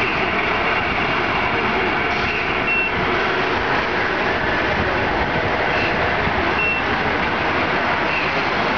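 Scale RC semi truck with a tanker trailer backing up slowly, its onboard sound module playing a steady truck engine sound with a few short, high beeps.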